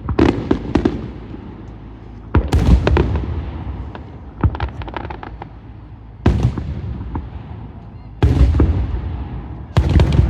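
Aerial fireworks bursting overhead. A cluster of sharp pops comes at the start, then four heavy booms follow, each a couple of seconds apart, with a quick run of crackling reports between the second and third.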